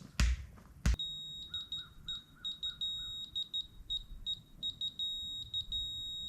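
Two thumps in the first second, then a laser level receiver beeping: a high-pitched tone that switches between a steady held tone and quick broken beeps as the grade rod is moved up and down to find grade.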